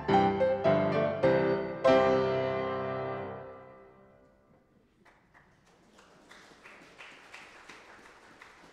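Piano music ends on a final chord that rings and fades out about four seconds in. Faint light clicks and taps follow.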